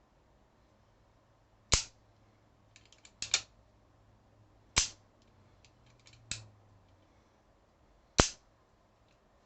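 Replica Colt Peacemaker single-action revolver being cocked and dry-fired: faint ratcheting clicks of the hammer being drawn back, then a sharp metallic snap as the hammer falls, five snaps in all, roughly one every second and a half.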